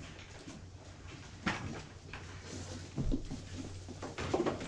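Animals shuffling about in a barn, with a few scattered knocks over a steady low hum.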